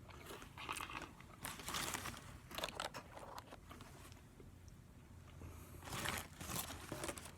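Close-up chewing of a crispy fried chicken sandwich, with irregular bursts of crunching from the breaded coating.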